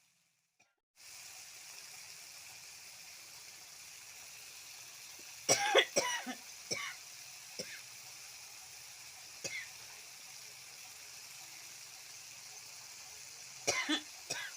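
A person coughing in two short bouts, the first a few seconds in and the second near the end, over a steady hiss.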